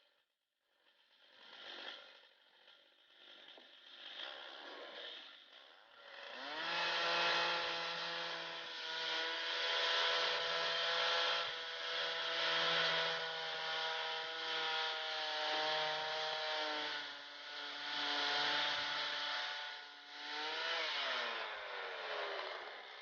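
Stihl 088 chainsaw power head on a swing blade sawmill, rising from a low, rattly running to full throttle about six seconds in. It holds high revs for about fourteen seconds, then drops back down near the end.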